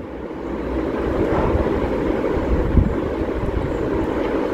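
A steady low rumbling noise that swells in over the first second and holds, with one short dull thud about three seconds in.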